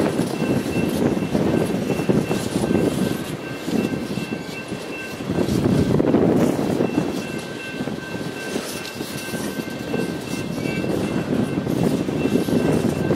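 Ballast hopper cars of a rock train rolling past, a continuous rumble and clatter of steel wheels on rail that swells and eases, loudest about halfway through. A grade-crossing bell rings steadily behind it.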